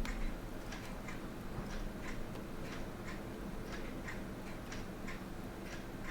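Steady clock-like ticking, about two ticks a second, over a low steady hum.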